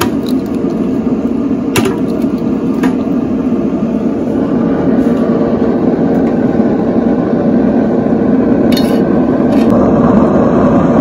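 A steady rumbling noise throughout, with a few light clicks as metal tongs set a chuck roast onto a pellet grill's metal grate.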